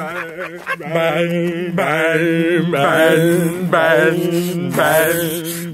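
A young man's voice chanting wordless, wavering held notes, one after another, over a steady low hum.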